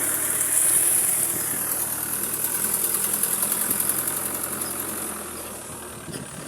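Vehicle engine running steadily, with a constant high hiss over it as the vehicle travels.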